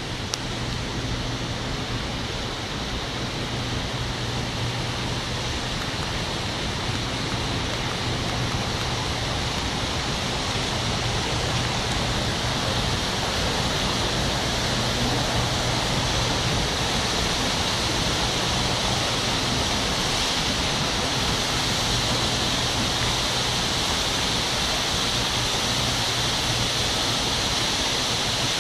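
Indoor fountain's water jets rushing and splashing steadily, gradually growing louder and brighter over the first half as the jet builds into a tall column. A faint steady low hum runs underneath.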